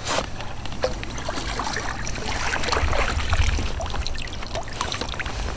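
Water splashing and trickling as a hooked fish is brought alongside a kayak and scooped out in a landing net, water draining from the mesh.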